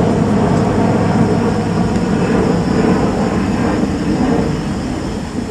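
Jet airliner passing overhead, a loud steady rush with a faint high whine, slowly fading.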